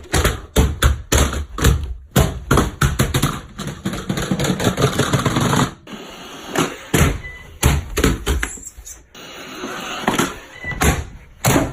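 Roomba robot vacuums tumbling down stairs: a long run of hard plastic clatters and thumps as they hit the steps, in irregular bursts with a short pause about halfway through.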